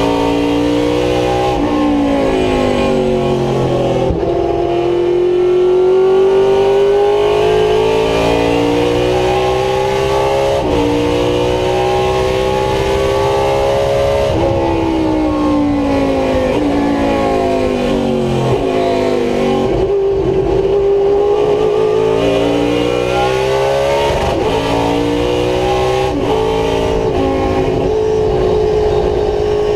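Race car V8 engine heard from inside the cockpit at racing speed. It revs up through the gears with quick upshifts. About halfway through it winds down through downshifts for a corner, then climbs through the gears again.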